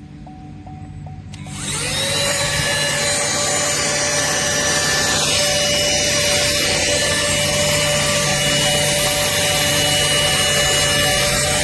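Cordless handheld mini vacuum switched on about a second and a half in. Its motor whine rises as it spins up, then it runs steadily and loudly.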